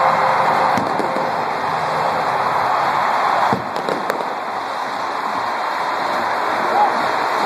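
A huge stadium crowd cheering in a dense, steady roar, with a few sharp pops a little over halfway through.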